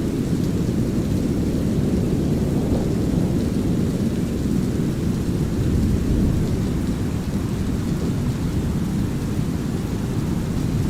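Steady deep brown noise mixed with light rain and low rolling thunder, swelling slightly a couple of times.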